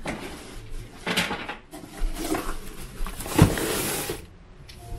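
Rustling of a small artificial Christmas tree's plastic branches as it is handled, in several bursts, with a sharp knock about three and a half seconds in.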